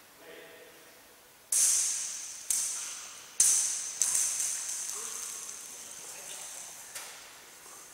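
Blind-tennis sound ball, a foam ball with rattling pellets inside, bouncing on the wooden court floor and being struck by a racket: five sharp hits, each setting off a bright, hissing rattle that fades away.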